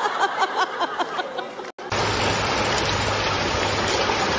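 Laughter in short bursts, cut off after about a second and a half; then a steady rushing noise of heavy rain and water running over a flooded street.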